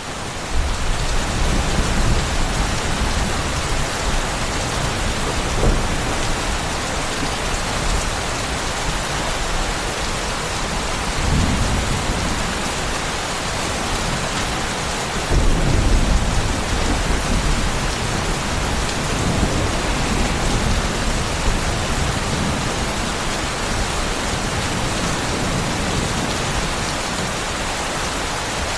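Heavy rain pouring steadily, with deep low rumbles swelling up about eleven and again about fifteen seconds in.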